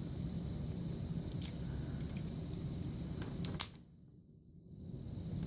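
Sharp metallic clicks of a Wilson Bohannon padlock being worked with its key, the loudest about three and a half seconds in, over a low steady background noise that drops away after that click.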